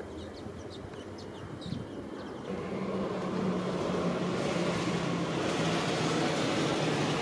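Airliner engine noise, a rumble with a steady low hum that gets louder about two and a half seconds in and keeps building with a rising hiss as the aircraft comes by. Birds chirp in the first couple of seconds.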